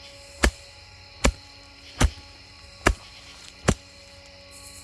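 Collapsible multi-tool shovel blade chopping into a tough white oak root: five sharp strikes about a second apart.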